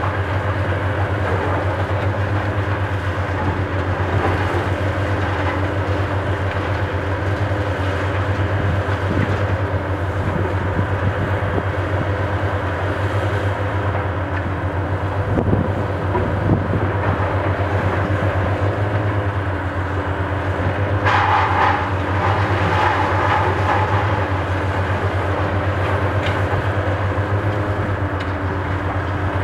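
High-reach demolition excavator's diesel engine running with a steady low drone, with scattered knocks as it works the building and a burst of clattering about two-thirds of the way through.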